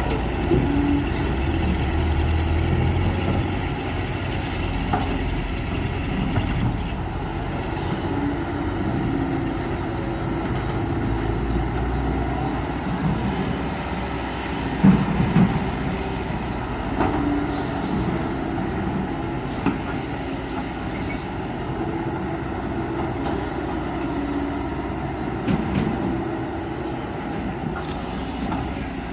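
Heavy diesel engine of a hydraulic excavator running steadily, with a few short knocks, the loudest about halfway through.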